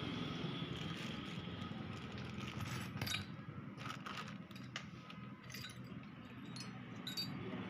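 Scattered light metallic clinks and scrapes of metal parts and tools being handled, over a steady low hum.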